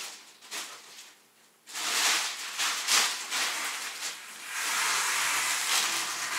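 Plastic grocery bag and packaging rustling and crinkling as items are pulled out of the bag, in uneven bursts with a short pause about a second in.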